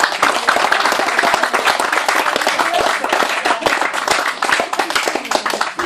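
A small audience clapping and applauding at the end of a harp tune, thinning out near the end.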